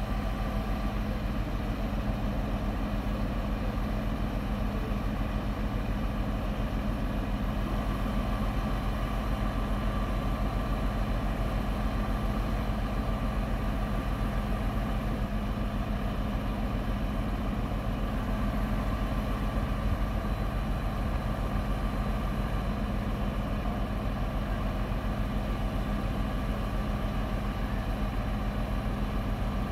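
Crane truck's diesel engine running steadily at a constant speed, driving the lorry-mounted hydraulic crane that holds the boat.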